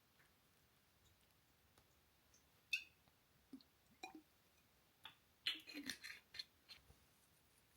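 Quiet handling noise: a few soft, scattered clicks and taps of small objects, with a short busier run of taps and clinks about five and a half seconds in.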